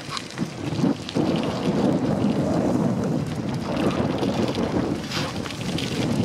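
Wind buffeting the microphone of a moving bicycle, with bicycle tyres rolling over a gravel track, and a couple of short rattles near the start and about five seconds in.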